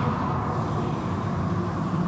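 Automatic car wash machinery running, heard from inside the car: a steady rumble with water spray and hanging cloth strips washing over the body.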